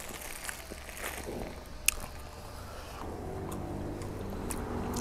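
A motor vehicle's engine running, its hum coming in about three seconds in and growing louder. Before that, a few scattered clicks, the loudest a single sharp click just before two seconds in.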